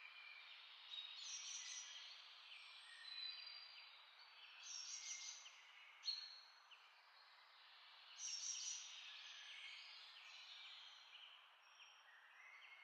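Faint bird chirps scattered over a steady hiss.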